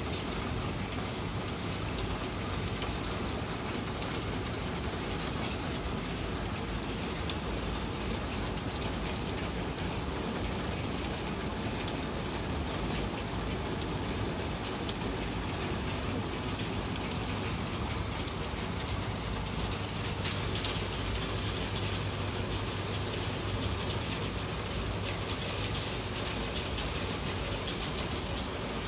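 Steady spring rain falling, with a constant hiss and many small drop ticks, over a low steady hum.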